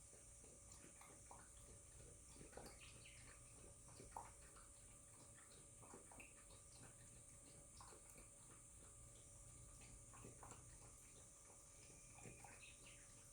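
Faint, irregular little clicks and wet smacks of a Shiba Inu eating, over a steady background hiss.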